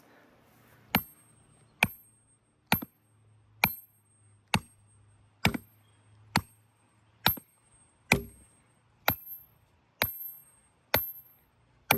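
A hammer striking metal: thirteen evenly spaced blows a little under a second apart, each with a short, high, metallic ring.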